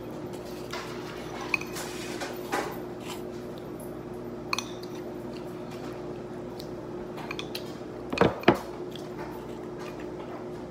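Dishes knocking and clinking on a stone kitchen countertop: scattered light clicks, then two louder knocks close together about eight seconds in as a bowl is set down. A steady hum runs underneath.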